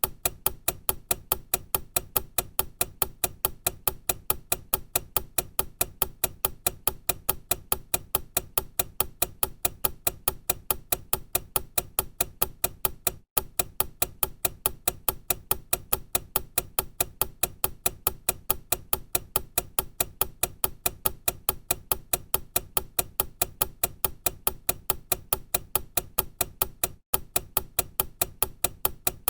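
Time-bomb clock ticking: a steady, even run of sharp mechanical ticks that twice breaks off for an instant.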